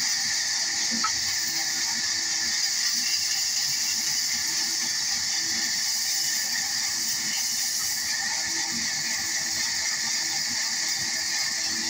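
Large band saw running and ripping a wooden block lengthwise: a steady, high-pitched noise that holds the same level without pauses.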